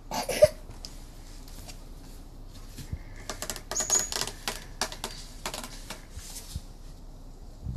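Plastic clicks and clatter from a toy remote-controlled monster truck being handled and knocked about by a small child. A sharp knock comes just after the start, then a run of quick, irregular clicks in the middle.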